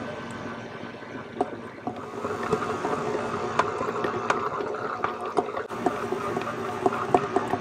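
Stand mixer running, its flat beater churning stiff dough in a stainless steel bowl: a steady motor hum with irregular sharp clicks and scrapes, getting louder about two seconds in.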